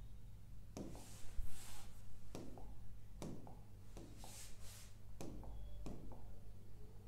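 A pen tapping on the glass of an interactive touchscreen display, about five sharp taps spaced irregularly. Two brief scratchy swishes come in between, over a steady low hum.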